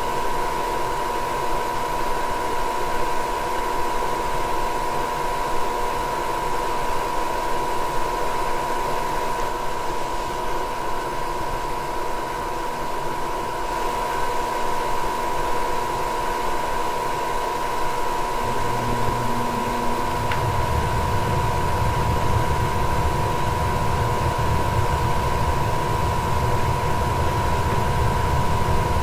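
Goodman gas furnace starting up: a motor runs steadily with a whine. About 18 seconds in a brief hum sounds for a couple of seconds, then a click, and a low rumble sets in and keeps going, typical of the burners lighting.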